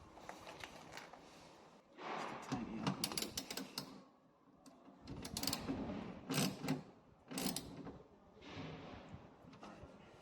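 Clicks and rattles of metal and plastic parts as a car door lock actuator assembly is handled and fitted inside the door, in two spells of a couple of seconds each.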